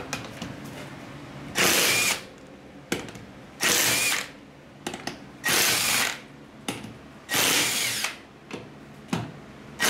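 Power tool run in four short bursts, each under a second long and about two seconds apart, with light clicking between them: fasteners being driven while front suspension parts are bolted on.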